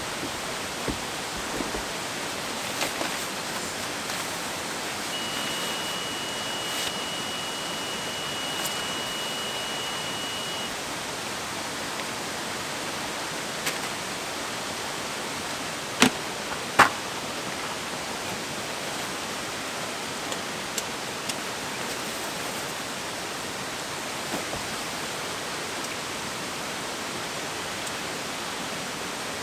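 Steady rushing of a nearby waterfall, which is loud at this spot. A thin high tone holds for about five seconds a few seconds in, and two sharp knocks come about halfway through.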